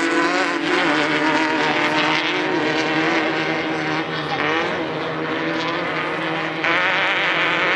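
Off-road race vehicle engines running and revving, with several engine notes layered and wavering up and down in pitch. The sound jumps in level abruptly a few times.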